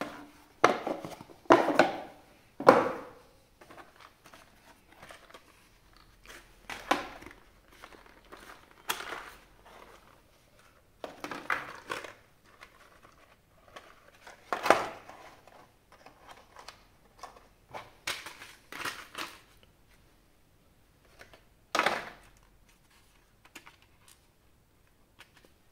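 Packaging being handled and opened: irregular crinkling, rustling and tearing, in short uneven bursts, with louder handling in the first few seconds and twice more later on.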